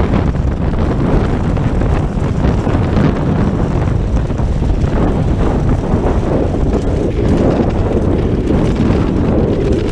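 Wind buffeting the microphone of a camera carried by a cross-country skier moving along a groomed trail: a loud, steady low rumble.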